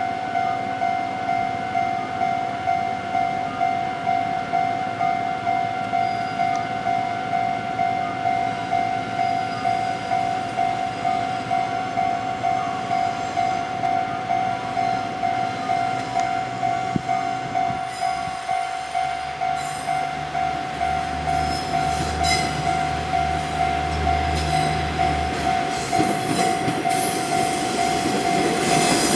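Japanese level-crossing warning bell ringing in an even, rapid pulse of about two strokes a second. About two-thirds of the way in, the low rumble of KiHa 48 and KiHa 40 diesel railcars' engines comes in beneath it, and the railcars' noise grows near the end as they draw closer.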